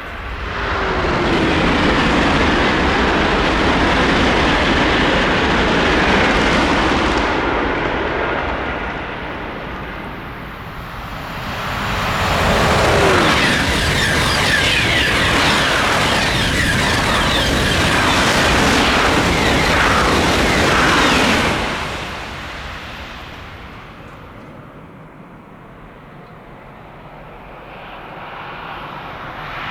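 TGV high-speed trains passing at speed twice, each a loud rushing pass of several seconds with a brief falling pitch as it goes by. The sound dies away about two thirds of the way in and begins to build again near the end.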